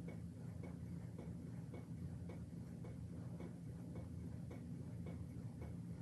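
Faint, regular ticking, about two ticks a second, over a steady low hum of room tone.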